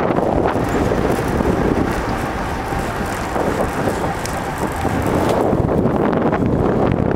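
Steady wind noise on the microphone of a bicycle in motion at speed, with a dense rushing sound that dips slightly midway.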